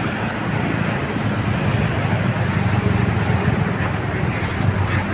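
Steady rumble and tyre noise of highway traffic.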